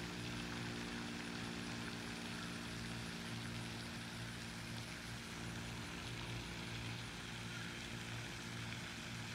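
Steady low mechanical hum at one unchanging pitch, like a running engine or motor, over faint outdoor background noise.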